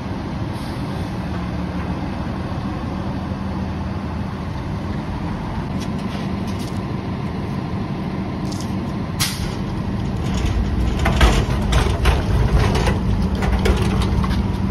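Rear-loader garbage truck's diesel engine idling with a steady hum. From about ten seconds in come sharp metal clanks and knocks as the crew rolls a metal commercial bin up to the rear hopper and hooks it on.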